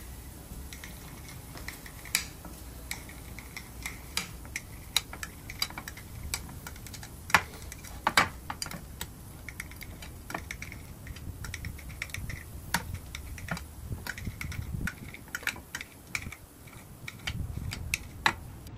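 Kitchen knife chopping on a cutting board, irregular sharp taps as ham is diced into small cubes.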